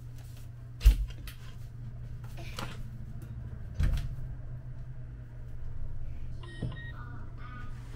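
Handling a paper bag of granulated sugar at a kitchen counter: rustling, and two dull thumps about three seconds apart, the first the loudest. A steady low hum runs underneath, with short high-pitched sounds near the end.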